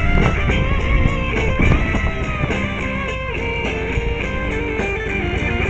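Guitar-led music playing, over a steady low rumble of the motorcycle's engine and wind noise.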